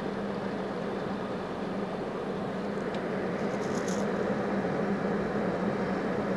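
Inverter welding machine switched on and running, giving a steady hum with a constant low tone underneath. A brief light rattle about three and a half seconds in as the meter probes are moved.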